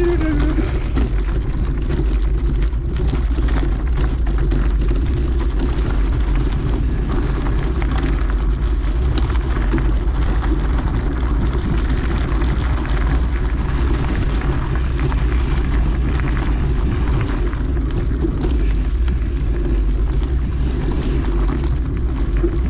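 Steady low wind rumble on the microphone with tyre and trail noise while a mountain bike is ridden along a dirt trail.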